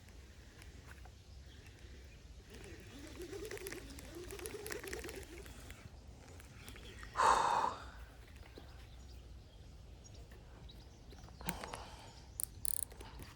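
A person breathing heavily with voiced sighs, then one loud exhale about seven seconds in, followed by a few sharp clicks near the end.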